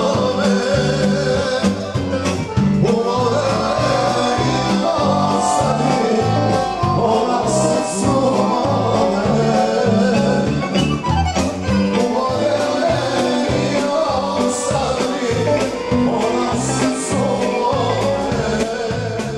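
Live band music: electric guitars, bass and drums with a sung vocal, the bass playing a steady walking line.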